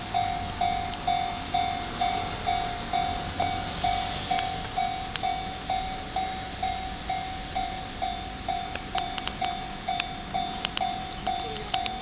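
Railway level-crossing warning bell ringing, one clanging tone repeated evenly about twice a second: the crossing is signalling an approaching train. A few scattered clicks join in near the end.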